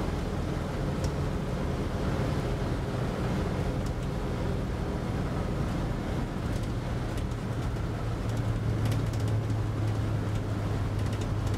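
Cab interior of a 1941 Dodge military panel truck under way: the engine runs steadily over road and wind noise, its note growing stronger about halfway through, with a few faint rattles near the end. Part of the wind noise comes from the driver's door, which needs adjusting.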